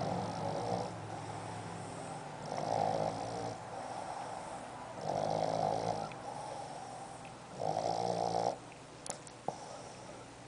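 A pet snoring in a slow, regular rhythm: four louder snores about two and a half seconds apart, with softer wheezy breaths between them.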